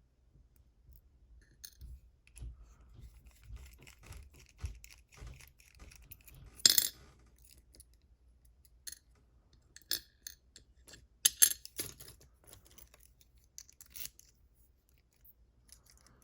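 Small brass padlock and its key being handled: scattered small metallic clicks and clinks, the sharpest about 7 s in and two more close together around 11 s.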